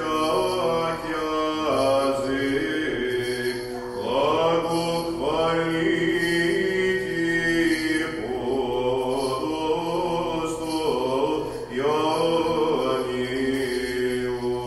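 A man's voice chanting a liturgical text in Byzantine style, in phrases of a few seconds each, over a steady low held drone (ison).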